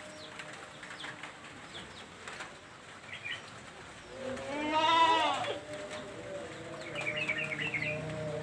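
A goat bleats once, a long wavering call about four seconds in. Small birds chirp briefly before and after it.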